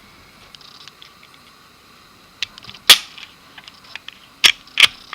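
Sharp metallic clicks from a Glock 17 pistol being cleared and taken down: a faint click, a loud one about three seconds in, then two more near the end.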